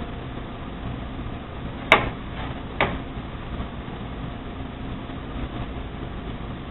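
Steady low mechanical hum with two sharp knocks about a second apart, near two seconds in, as a knife strikes the cutting board while a chicken is broken down.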